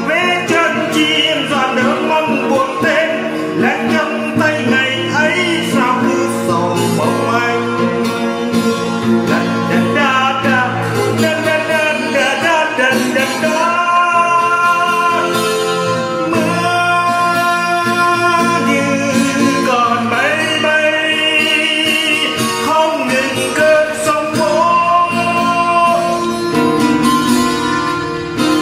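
A man singing a Vietnamese ballad to plucked acoustic guitar accompaniment.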